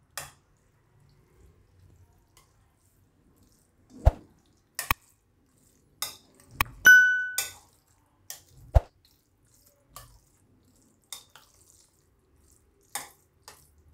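Metal spoon stirring curd into cooked rice in a glass bowl: wet squelching and scattered knocks of the spoon against the glass, with one ringing clink about 7 seconds in.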